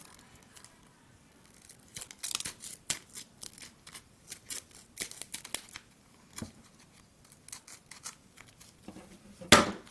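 Scissors snipping off excess clear tape from a taped ball of toilet paper: a scattered run of short snips and crinkles, with one louder sharp knock near the end.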